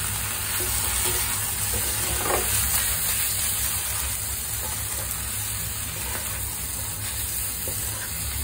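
Shrimp frying in sauce in a hot pan while being stirred with a wooden spatula: a steady sizzle with a few faint scrapes and clatters of the spatula.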